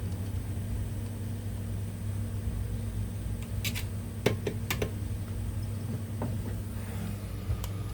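Steady low electrical hum from the bench repair equipment, with a few sharp clicks of tools against the circuit board about four to five seconds in and single ones later.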